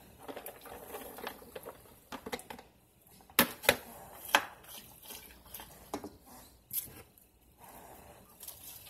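Chopped vegetables being tipped into a stainless steel pan of broth and stirred with a ladle: soft rustling and scraping, with about five sharp knocks of ladle and container against the pan in the middle.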